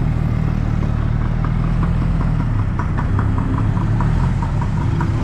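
Motor vehicle engine running steadily at low speed, with a light, regular ticking about three times a second.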